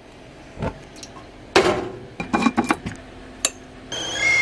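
A few sharp clinks and clanks from the gas stove and cookware as a burner is lit, then near the end a stovetop whistling kettle starts to whistle, a loud steady high tone: the water has come to the boil.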